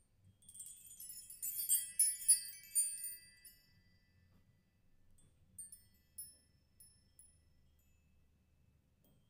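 High tinkling chimes: a quick flurry of overlapping bell-like notes for the first few seconds, then a few scattered single tinkles a little past the middle.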